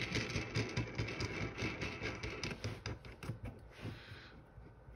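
Handling noise from a Wiregear sight pusher tool being fitted together: rapid small clicks, taps and rubbing of metal parts on a cloth, busiest in the first three seconds, then thinning out.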